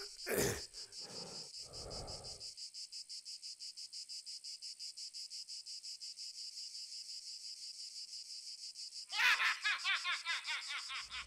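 Insects trilling in a steady, rapid, high-pitched pulse. About nine seconds in, a man's loud, rhythmic laughter breaks in over it.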